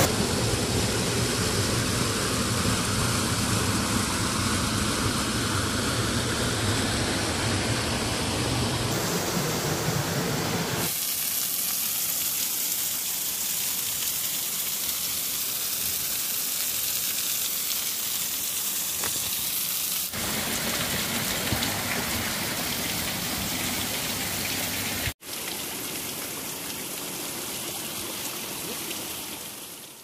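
Rushing water of a rocky stream tumbling down a cascade and a small waterfall: a steady, even rush. It shifts abruptly in tone three times and fades away at the end.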